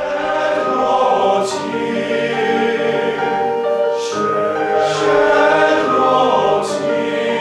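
Men's vocal ensemble singing held chords, several voices sounding together and shifting chord every second or so, with a few sharp 's' sounds cutting through.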